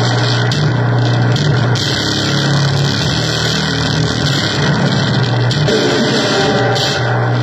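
Harsh electronic noise music from a keyboard and drum machine: a steady low drone under a dense, harsh hiss, loud and unbroken.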